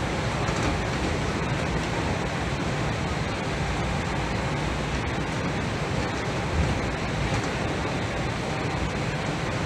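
Steady rumble and hiss heard inside a KL Monorail car running at speed along its elevated guideway, its rubber tyres rolling on the concrete beam.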